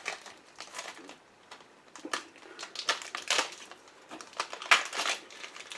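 Hands working a keyring and its packaging: irregular clicks and plastic crinkling, with a few sharper snaps about two, three and five seconds in.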